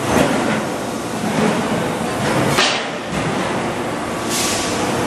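Machinery on a hydraulic press line for stainless-steel kitchen sinks running steadily, with two short hisses, about two and a half seconds in and near the end.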